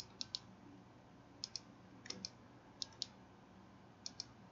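Computer mouse buttons clicking faintly: five pairs of quick, sharp clicks, spaced about a second apart.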